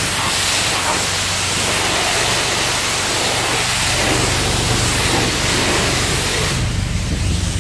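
Self-serve car wash high-pressure wand spraying water onto a car's body: a loud, steady hiss over a steady low hum. The hiss thins out near the end.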